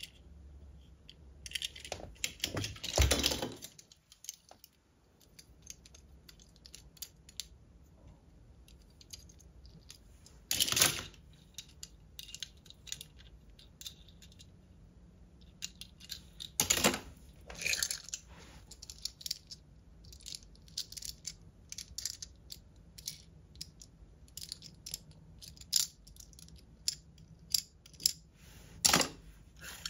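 Small diecast toy cars handled in the fingers: scattered light clicks and clinks of metal bodies, plastic wheels and fingernails, with a few louder clattering knocks about three seconds in, around eleven and seventeen seconds, and near the end.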